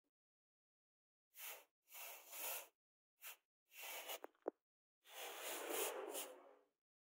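Red-hot steel knife blade, forged from a tractor disc plough, quenched in water. It sizzles in short bursts as it is dipped again and again, with a sharp click a little after the middle and the longest, loudest sizzle near the end.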